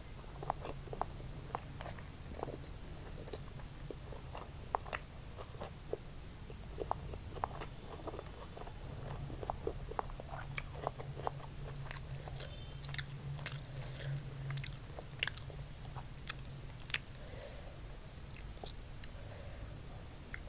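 Close-miked chewing of a mouthful of fried rice, with many sharp wet mouth clicks and smacks, most frequent past the middle, over a steady low hum.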